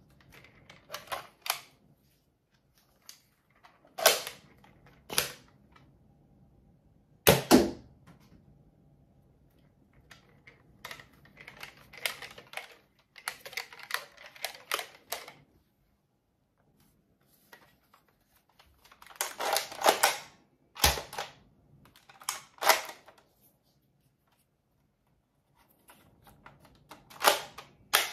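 Plastic toy foam-dart blasters being handled, loaded and fired: sharp pops every few seconds, with stretches of quicker plastic clicking in between.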